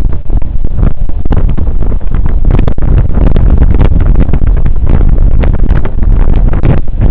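Strong wind buffeting a camera microphone: a loud, constant low rumble with irregular crackling.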